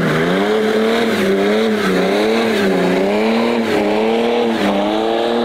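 BMW 3 Series saloon doing a burnout: the engine is held high in the revs, its pitch wavering up and down about once a second as the throttle is worked, over the hiss of the spinning rear tyres.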